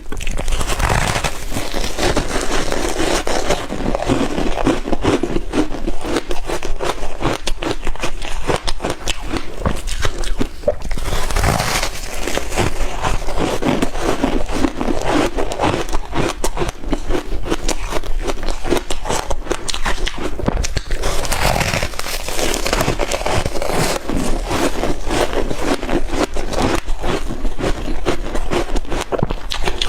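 Shaved ice being chewed close to the microphone: a dense, continuous crackly crunching.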